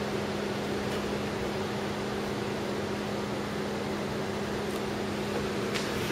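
Steady mechanical hum with a low, even drone, with a short click near the end.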